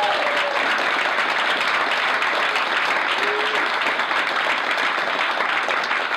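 Small audience clapping and cheering, with a shout fading out at the start and a brief voice about halfway; the clapping eases slightly near the end.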